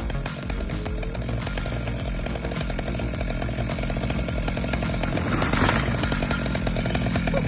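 Chainsaw running steadily, with a louder noisy swell about five and a half seconds in, over background music.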